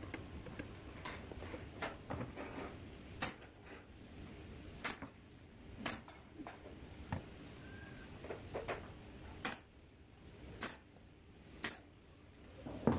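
Pneumatic nail gun firing nails into wooden panels: about ten sharp clacks, one every second or so.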